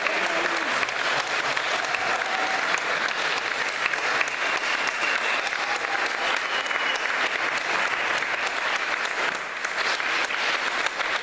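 Audience of a few dozen people applauding, dense steady clapping that eases slightly near the end.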